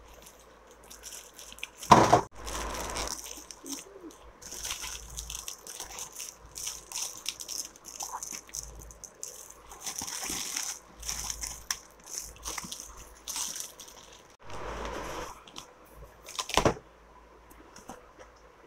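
Clear plastic wrap crinkling and rustling in irregular bursts as it is pulled and peeled off a cardboard box, with a sharper, louder crackle or knock about two seconds in and another near the end.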